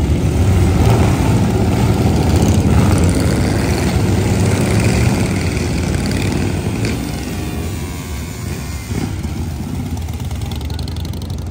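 Several custom chopper motorcycles riding past one after another, their engines running with a loud low rumble that eases somewhat after about seven seconds.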